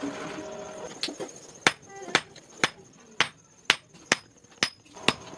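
Blacksmith's hammer striking steel on an anvil while forging a sickle: a steady run of ringing blows, about two a second, starting after about a second.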